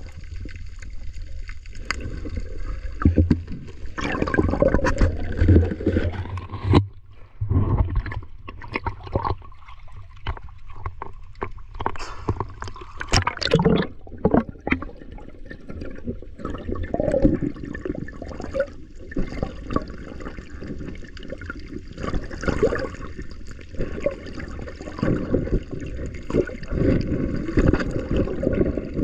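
Water sloshing and gurgling around a camera held underwater, a muffled, uneven churn with a low rumble, scattered crackling bubbles and a sharper splashing stretch about halfway through.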